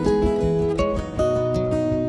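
Background music with strummed acoustic guitar.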